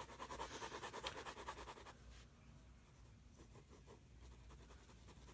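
Pen scratching on paper in quick sketching strokes, stopping about two seconds in.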